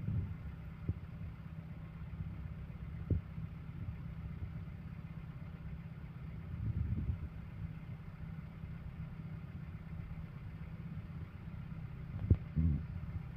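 Large engine running steadily with a low rumble, with a few sharp knocks and the engine swelling louder about seven seconds in and again near the end.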